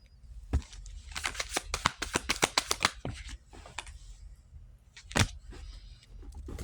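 Cards shuffled by hand: a fast run of crisp clicks, about eight a second for nearly two seconds, then a single sharper snap later on.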